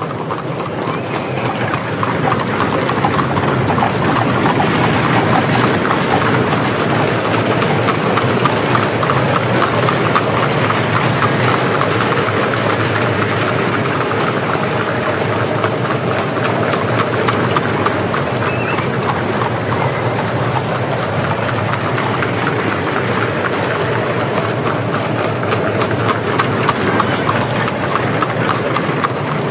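Many horses' hooves clip-clopping together in a dense, continuous patter, with horse-drawn carriages going by.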